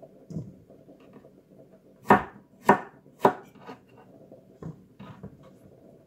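Kitchen knife chopping cucumber on a wooden cutting board: three sharp chops about half a second apart some two seconds in, then a few lighter knocks.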